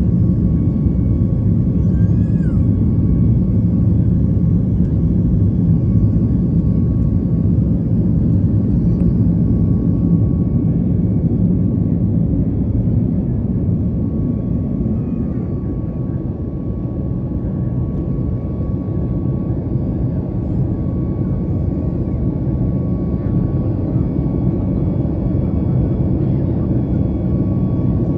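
Jet airliner engines heard inside the cabin during the climb after takeoff: a steady low rumble with a thin, steady whine above it. The rumble eases a little about halfway through and then builds back.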